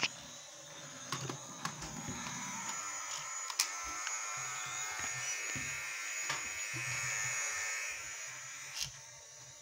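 Small electric motor of a battery-powered toy police helicopter buzzing steadily, with a few sharp clicks and knocks; the buzz swells slightly and then drops away near the end.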